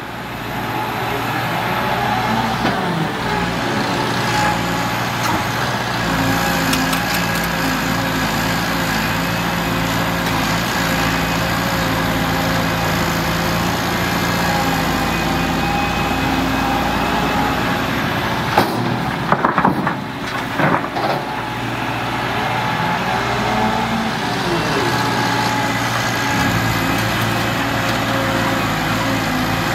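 Liebherr R930 crawler excavator's diesel engine running steadily as it works its hydraulics to swing and dig, its pitch rising and falling now and then under load. A few sharp knocks come about two-thirds of the way through, as the bucket works the rocky soil.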